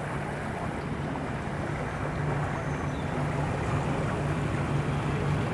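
Yamaha outboard motor running at slow idle speed: a steady low engine hum that grows a little louder partway through.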